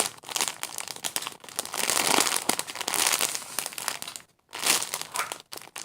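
Plastic crinkling and rustling as a squishy toy is handled and squeezed, with a brief pause about four seconds in.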